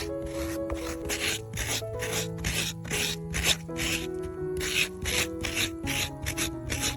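Repeated rasping, scraping strokes, about two a second, over background music with sustained notes.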